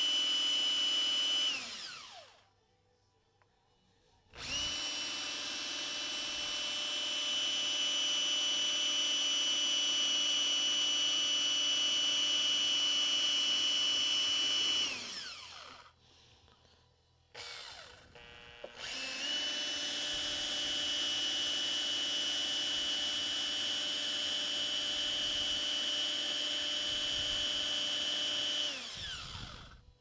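Makita cordless drill running at a steady speed while drilling a hole in metal. It runs in long stretches of about ten seconds, stopping twice, and each stop winds down with a falling whine.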